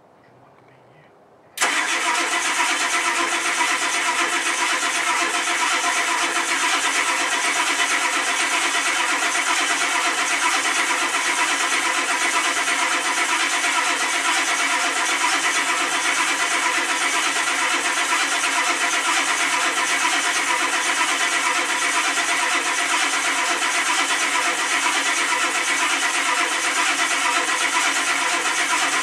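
Starter motor cranking a 1991 Ford F-250's 7.3-litre IDI diesel V8 on a cold start. It cuts in suddenly about a second and a half in and turns the engine over steadily without the engine catching: a failed cold start.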